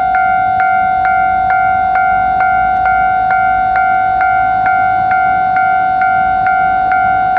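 Japanese railway level-crossing alarm ringing, an electronic clang struck a little over twice a second in an even rhythm over a steady ringing tone, warning that a train is approaching.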